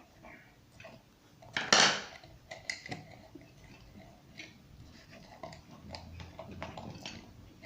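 Metal ceiling-fan parts being handled while a wire is fed through the motor: light clinks, scrapes and rustles, with one louder knock about two seconds in.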